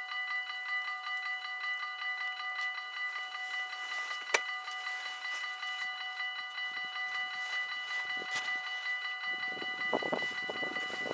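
Level-crossing warning bell ringing in fast, steady repetition while the barriers are down, with one sharp click about four seconds in. Near the end a low rumble rises beneath the bell: a train approaching.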